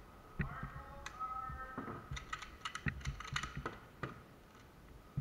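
A flurry of rapid light clicks and knocks, bunched mostly between about two and four seconds in.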